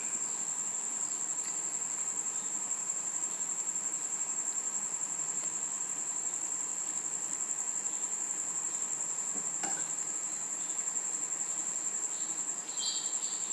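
Crickets trilling in one steady, unbroken high-pitched tone, with a single faint knock a little under ten seconds in.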